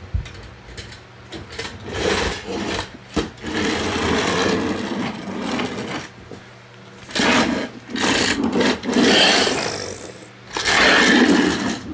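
Remote-control toy T. rex running, its small gear motor whirring and grinding in uneven spurts.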